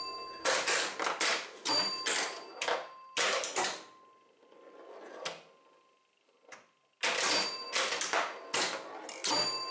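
Bally 4 Queens electromechanical pinball machine in play: rapid bursts of scoring clatter from relays and score reels, with a bell ringing through them. The clatter dies down for a couple of seconds in the middle, then starts up again near the end.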